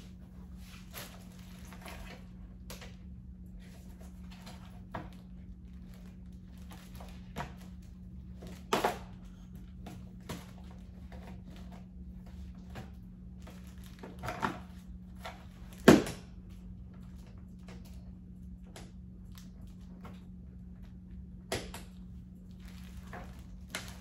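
Scattered knocks, clunks and rustles of craft supplies and containers being handled and set down during unpacking, the sharpest knock about two-thirds of the way through, over a steady low hum.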